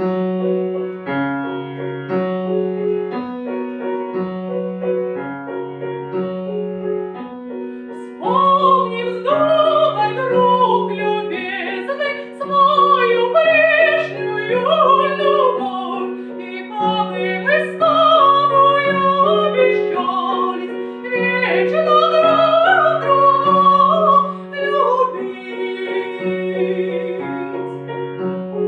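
Piano playing an accompaniment with a repeating bass pattern; about eight seconds in a female voice begins singing a Russian folk song over it, in a classical style with vibrato.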